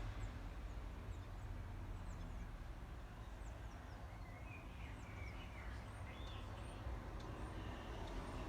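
Small birds chirping, with short high calls throughout and a brief warbling run about halfway through, over a steady low rumble.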